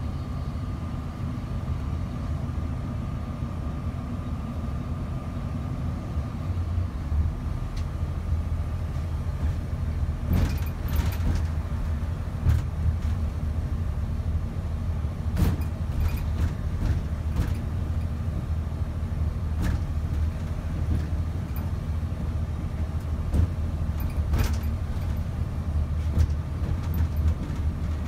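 Greyhound coach on the move: a steady low engine and road rumble, with a faint steady whine in the first few seconds. From about ten seconds in, sharp clicks and knocks come every second or two.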